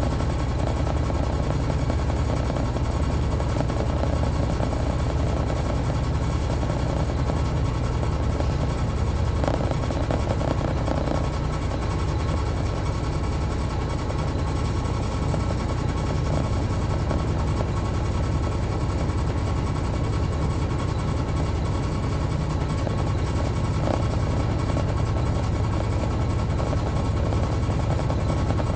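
Detroit Diesel Series 60 inline six-cylinder diesel of an MCI D4000 coach running steadily, heard from inside the passenger cabin as a low, even engine drone.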